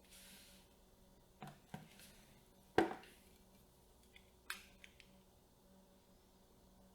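Camera rig parts being handled and fitted: a brief soft rustle, then a few small clicks, one louder knock with a short ring about three seconds in, and two more clicks shortly after.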